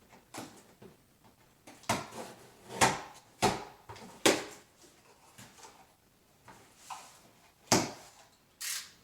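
A cardboard shipping box being cut and pulled open by hand: a string of sharp, irregular scrapes and knocks, loudest in a cluster around the middle and once more near the end.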